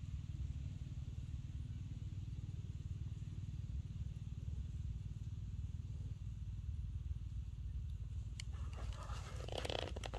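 A steady low rumble, with a few crackles of dry leaves rustling near the end.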